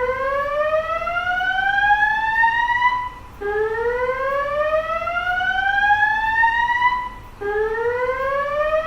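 Notifier fire alarm evacuation system sounding its whoop alert tone: a loud tone rising steadily in pitch for about three and a half seconds, then breaking off and starting again low, repeating about every four seconds.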